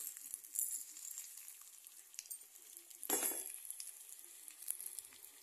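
Whole green capsicum sizzling and crackling in a steel kadhai, nearly cooked through, with a louder crackle about three seconds in.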